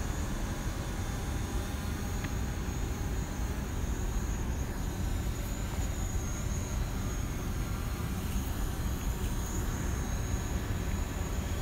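Steady hum of a DJI Mavic quadcopter's motors and propellers while it hovers in place, over a low, even rumble.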